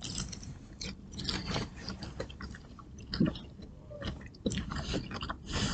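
Close-up chewing of a mouthful of chicken Caesar salad: irregular crisp crunches, with a brief hum about three seconds in.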